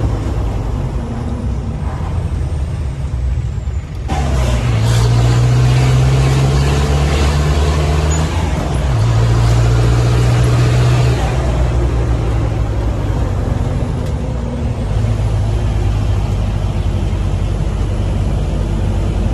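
Mahindra Commander jeep's engine running with its muffler removed and an aftermarket SC Project exhaust fitted. It runs steadily, picks up sharply about four seconds in, rising in pitch, and its note shifts again a few seconds later before settling.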